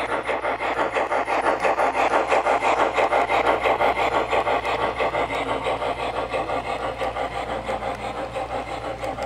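HO scale model steam locomotive's DCC sound decoder playing steam exhaust chuffs in a fast, even beat of about four to five a second. It is loudest about two to three seconds in as the engine passes close.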